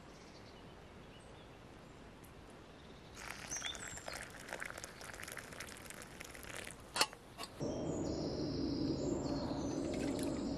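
Coffee poured from a camping percolator into a wooden kuksa cup, a splashing trickle lasting a few seconds, ending in a sharp click. Then a louder steady rushing noise sets in, with birds chirping over it.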